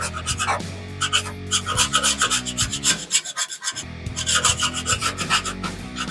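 Background rock music with a steady, fast drum beat over bass and guitar notes, cutting out briefly twice.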